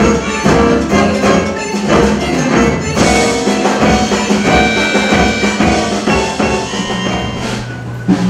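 Large instrumental band playing jazz-style music with drum kit and percussion in a steady rhythm, thinning out near the end.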